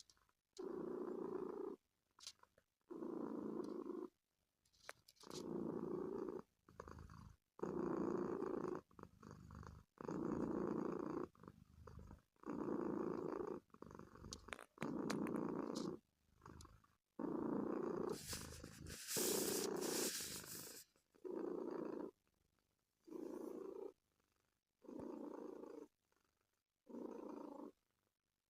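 Domestic cat purring under a blanket in long breaths, about one every two seconds. There is one longer, louder breath with a hiss about two-thirds of the way in.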